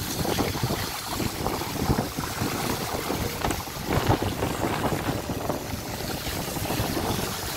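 Bicycle tyres ploughing through standing floodwater, a steady rush of splashing spray, with wind noise on the microphone.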